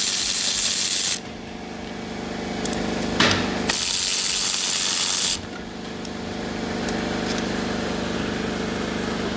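Power ratchet running in two bursts of under two seconds each, one at the start and one about four seconds in, backing out the starter's 15 mm mounting bolts. A short click falls between the bursts, and a steady hum runs underneath.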